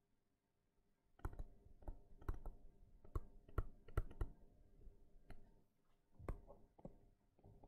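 Pen stylus tapping and clicking on a tablet screen while handwriting: a string of faint, irregular ticks that starts about a second in.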